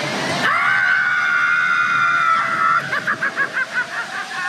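Log flume riders screaming on a drop. A short rush of water noise comes first, then one long high-pitched scream of about two seconds, which breaks into quick pulsing cries or laughter at about six a second.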